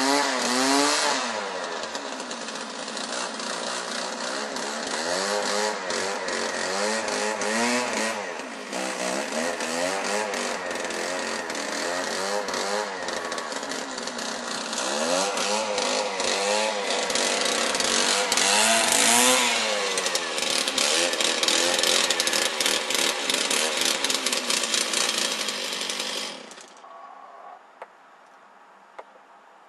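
Small petrol engine, likely driving the lure-coursing machine that reels in the lure line, revving up and down over and over as the lure is pulled ahead of the running dogs. The engine sound stops suddenly near the end.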